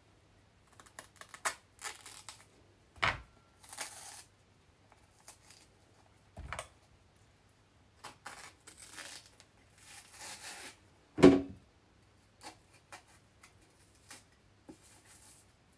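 Bananas being peeled by hand: skin tearing and rustling in short strokes, broken by a few sharp knocks of handling, the loudest about eleven seconds in.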